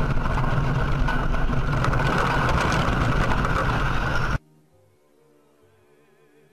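Loud, steady rumbling noise that cuts off abruptly about four seconds in. Faint music follows.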